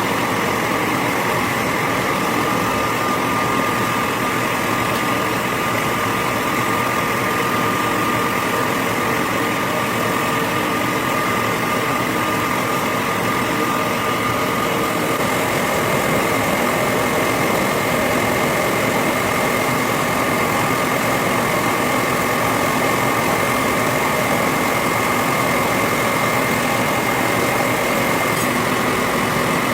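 Factory machinery running steadily: a constant mechanical hum with high, steady whining tones over it.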